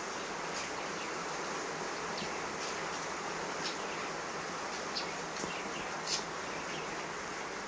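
Steady hissing background noise with a few faint, short scrapes, about one a second, as a coconut's husk is rubbed on a cement floor.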